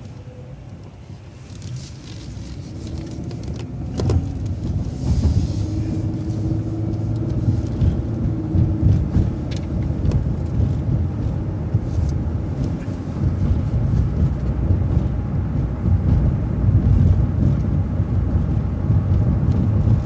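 City transit bus running, getting louder from about two to four seconds in as it pulls away and picks up speed, then holding a steady low rumble. A sharp click about four seconds in.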